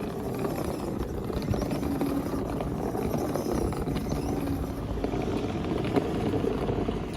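Toddler's electric ride-on bumper car driving, a steady low rumble of its wheels rolling over the ground with the quiet hum of its small motors.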